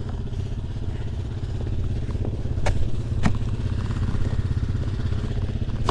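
ATV engine idling steadily, with two sharp clicks about halfway through as the plastic traction boards are picked up.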